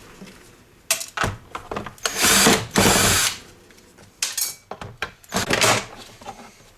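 Power drill-driver running in several short bursts, the longest about half a second each, backing screws out of a vacuum cleaner's plastic housing.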